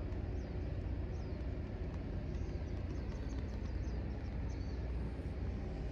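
A steady low engine rumble, with scattered short, high bird chirps over it.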